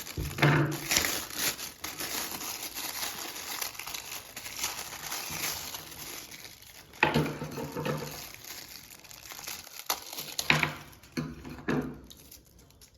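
Plastic packaging crinkling and rustling as the soundbar's cables and accessories are handled and unwrapped, with irregular louder crinkles.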